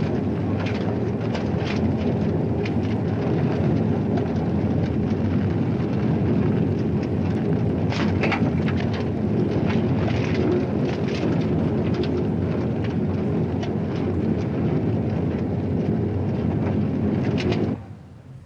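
A loud, steady low rumble with scattered crackles, which cuts off abruptly near the end.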